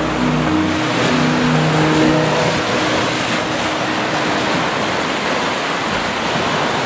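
Ocean surf: small waves breaking and washing up a sand beach, a steady rushing wash. A few soft held background-music notes fade out in the first two or three seconds.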